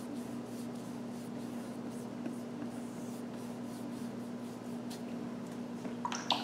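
A paintbrush rubbing water-mixable oil paint onto a canvas in soft strokes, over a steady low hum. A few light clicks come near the end.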